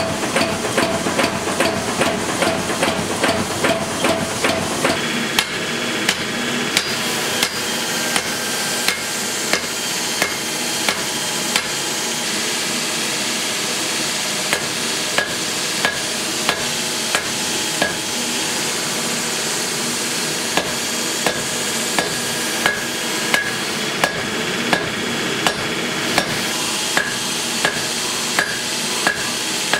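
Power hammer pounding red-hot leaf spring steel in quick, even blows, about three a second, for the first five seconds. Then a hand hammer strikes the hot blade on a chain-wrapped anvil at about one blow a second, each blow with a short ring.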